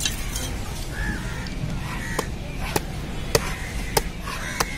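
A large knife chopping through a stingray on a wooden log chopping block: five sharp strikes, a little over half a second apart, starting about two seconds in.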